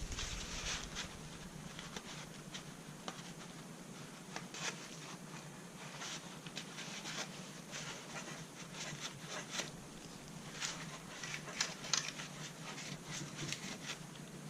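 Cotton swab scrubbing carbon fouling off a GSG-16 .22 rifle's parts: quick, irregular scratchy rubbing strokes, some sharper near the end.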